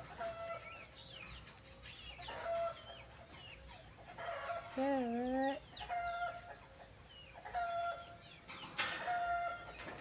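Ornate lorikeet (nuri dora) calling and whistling in a series of short pitched notes with falling tails, about five in ten seconds, with one longer wavering phrase about halfway through.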